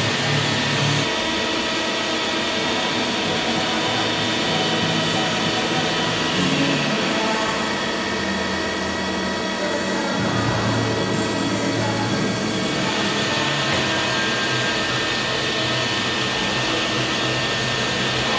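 CNC machine tool running during machining: a steady mechanical whir with thin high-pitched tones, its low hum changing pitch a few times.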